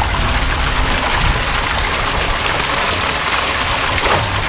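Water pouring steadily from pipe taps into plastic holding tanks, a continuous splashing hiss with a low rumble underneath.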